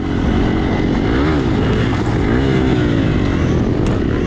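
Hero XPulse single-cylinder motorcycle engine running under load off-road, its revs rising and falling a few times as the throttle is worked.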